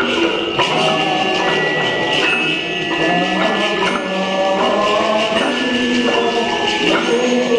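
Several lyres plucked together in free, overlapping notes that ring and fade, with long-held high ringing tones above them.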